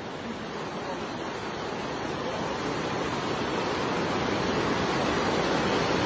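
Fast brown floodwater rushing in a torrent: a steady, dense rushing noise that grows gradually louder.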